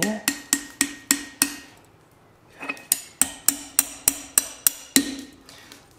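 Hand hammer striking steel blacksmith's tooling on an anvil, driving it into hot mild steel. Two runs of quick, even blows, about three to four a second, each with a short metallic ring, with a pause of about a second between them.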